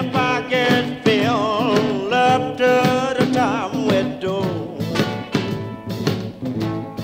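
Background music: a sung vocal with wavering held notes over a band with a steady beat.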